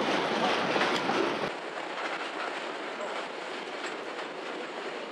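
Freight train of open box wagons passing, its wheels clattering over the rail joints in a run of rapid clicks. About a second and a half in the sound drops suddenly to a quieter, thinner clatter.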